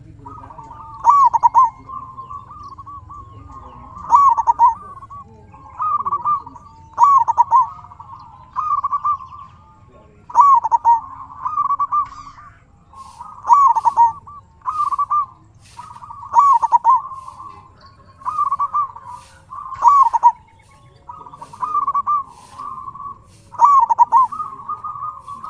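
Zebra dove (perkutut) cooing its song, short phrases of quick rolling notes repeated about every one and a half seconds.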